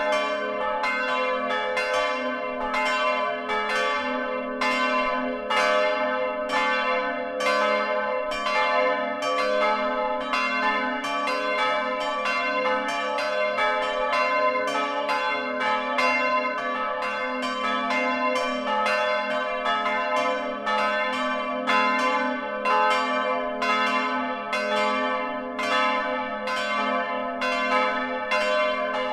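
Several bronze church bells swinging and ringing together, heard close up inside the bell tower. Their clapper strikes follow one another closely and overlap, and each stroke rings on.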